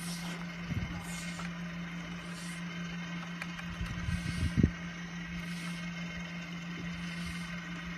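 HDPE geomembrane welding machine running with a steady low hum and a faint hiss that recurs about once a second. Two short low thumps come about a second in and midway.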